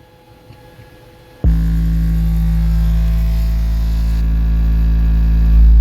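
Steady 55 Hz bass test tone (an SPL burp) played through six custom Soundstream XXX 15-inch subwoofers driven by a Taramps MD 12000.1 amplifier at 0.47 ohm. It starts abruptly about a second and a half in and steps louder near the end; at this frequency the amplifier is pushing almost its rated power.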